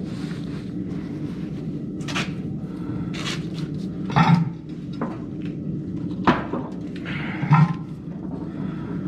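Pieces of steel bar stock clinking and knocking as they are handled and set down, five or so sharp metallic knocks with a short ring, over a steady low hum.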